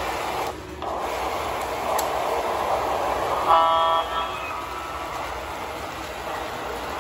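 O-gauge model diesel locomotive running along the track with a steady whir of motor and wheels. Its horn sounds once, briefly, about three and a half seconds in.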